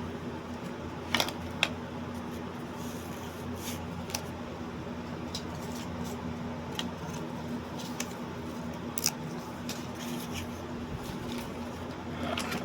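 Steady low room hum with a few short sharp clicks scattered through it, the loudest two close together about a second in.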